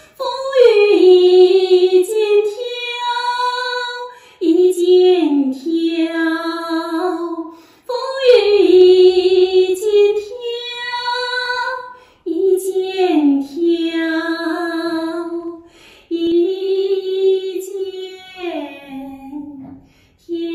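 A woman singing solo and unaccompanied (a cappella), in about five phrases separated by short breaths, each ending on a long held note with pitch slides between notes.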